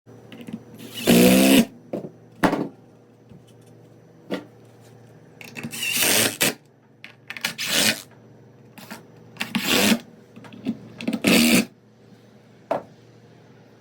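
Bandsaw with a 3/4-inch blade running with a steady hum, broken by about ten short loud rasping bursts as the blade bites into a dogwood log.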